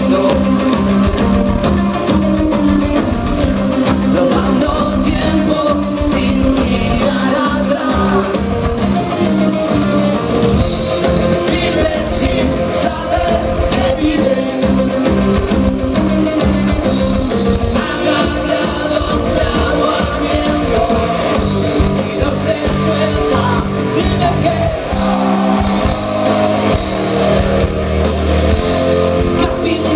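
Rock band playing live with a lead singer: electric guitars, bass and drums with a steady beat.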